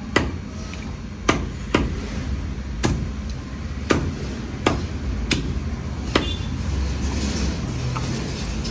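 Blade chopping through fish on a wooden block: about eight sharp, uneven strikes that stop about six seconds in.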